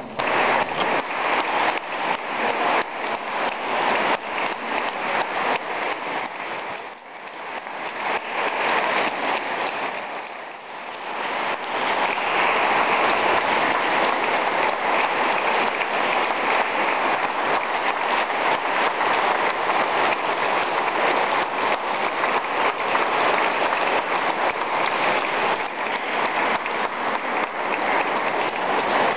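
A crowd applauding: sustained, dense clapping that dips briefly about seven and ten seconds in, then carries on steadily.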